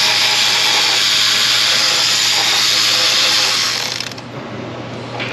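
Cordless electric ratchet spinning steadily for about four seconds as it backs out an exhaust manifold bolt, then stopping.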